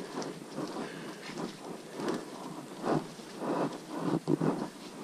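Footsteps squelching and scuffing on a muddy, leaf-covered hiking trail, with clothing and foliage rustling. The steps come at an uneven pace over a constant faint hiss.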